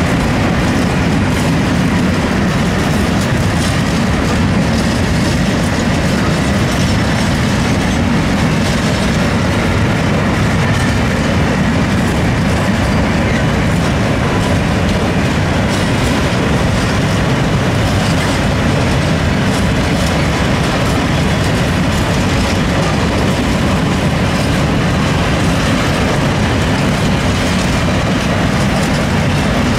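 Train wheels running on the rails: a steady, unbroken running noise, heaviest in the low end, with faint clicks over it.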